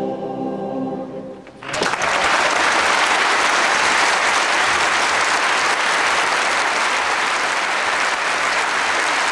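Massed choirs hold a final sustained chord, which fades out about a second and a half in. The hall then breaks into loud, steady applause.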